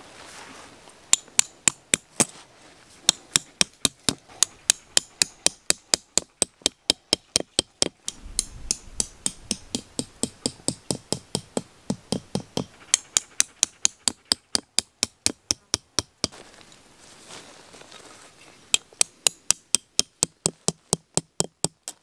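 Tent stakes being hammered into the ground: sharp, quick strikes, about three or four a second, in several runs with short pauses between them.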